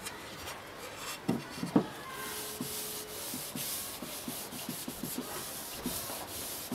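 Hand rubbing carnauba wax into a wooden box lid: a steady rubbing hiss in repeated strokes, about three a second. A few sharp wooden knocks come about a second and a half in, the loudest near the end of them.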